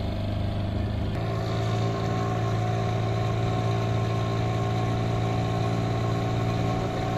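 Speedboat engine running steadily, its note changing about a second in.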